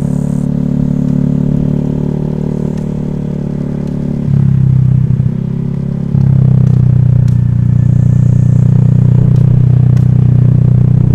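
Honda Vario scooter's single-cylinder engine running steadily at a constant pitch, getting louder briefly about four seconds in and again from about six seconds in.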